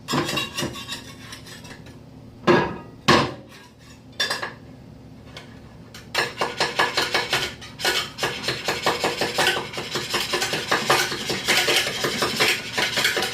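Spatula scraping and knocking at stuck-on candy in a microwave dish: a few separate knocks at first, then from about six seconds in fast, repeated scraping strokes. It is hard work to shift.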